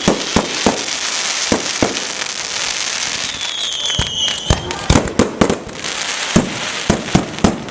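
Fireworks display: a rapid, irregular series of loud bangs with crackling between them, and a short whistle about three and a half seconds in.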